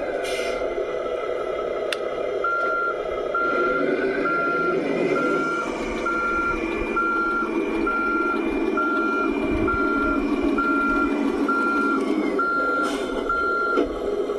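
Kabolite K3362 RC truck reversing: its sound module sounds a reversing beeper, about a dozen short even beeps a little under a second apart, over the model's running engine sound and electric drive whine, which picks up about five seconds in and eases off near the end.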